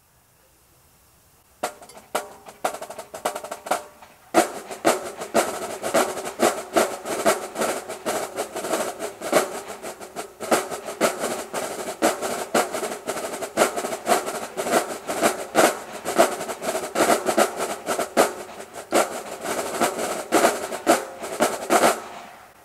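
Marching drumline (snare and tenor drums) playing a cadence. A few scattered strokes start about a second and a half in, and the full section comes in at about four seconds with fast, dense playing. It stops abruptly about a second before the end.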